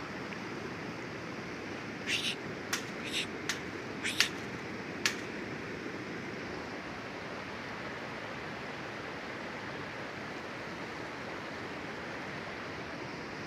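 Steady rush of running stream water. About two to five seconds in, a quick run of sharp metallic clicks and clinks comes from the wire cage mouse trap being handled.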